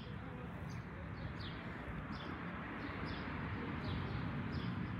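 A bird calling a steady run of short, high, falling chirps, about two a second, over a steady low background rumble.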